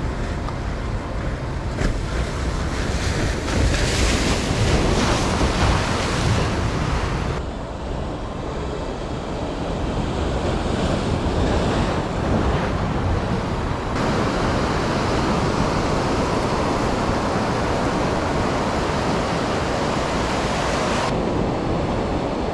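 Ocean surf washing in and breaking against jetty rocks, with wind buffeting the microphone. The surge is loudest a few seconds in.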